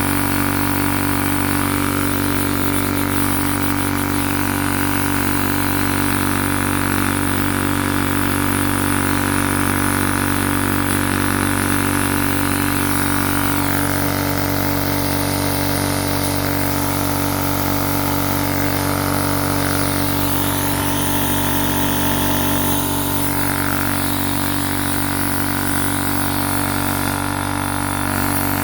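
TUXING TXED012 high-pressure air compressor running with a steady hum. It fails to build pressure, which the owner puts down to a missing rubber seal.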